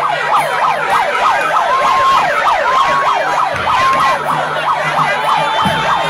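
Siren sounding in quick, overlapping rising-and-falling sweeps, broken by a few brief held notes.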